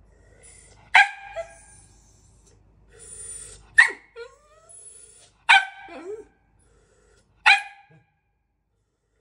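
Small fluffy dog barking at its own reflection in a mirror: four sharp barks spaced about two seconds apart, with short whines between them.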